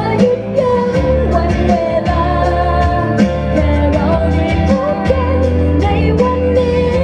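A woman singing a Thai pop ballad live into a handheld microphone over a backing track with a steady drum beat, holding long, wavering notes.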